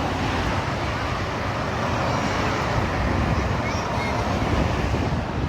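Expressway traffic passing close by: a steady rush of tyre and engine noise with a deep rumble that swells in the middle as vehicles go past.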